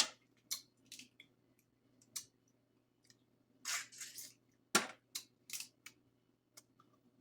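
Close-miked, irregular cracks and crackles from seafood-boil food being handled and eaten, with the sharpest crack near five seconds in.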